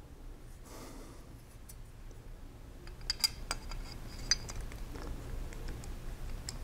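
A few light metallic clicks and clinks about halfway through, as the steel rule of a combination square is handled and set in its square head. A faint steady low hum lies underneath.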